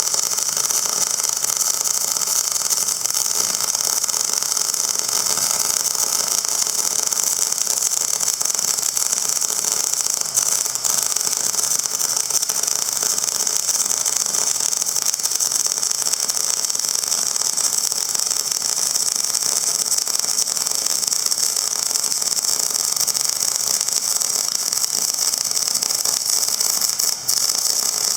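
A steady mechanical whir with a strong hiss, like a running engine or motor, holding even throughout.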